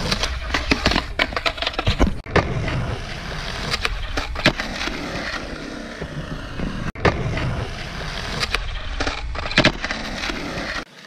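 Skateboard wheels rolling over the concrete of a skatepark bowl, with repeated sharp clacks of the board and trucks landing and hitting the concrete.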